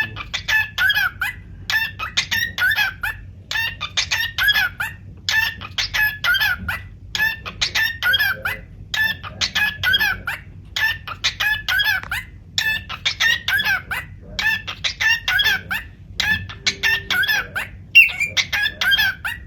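Cockatiel singing a short phrase of quick whistled chirps over and over, about once a second.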